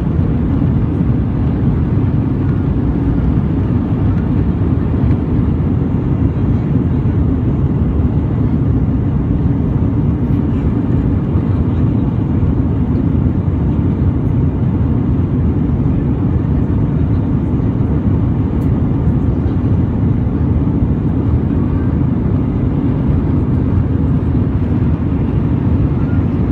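Steady low rumble of an Airbus A320 cabin in flight, from a seat over the wing: its two IAE V2500 turbofan engines and the airflow over the fuselage.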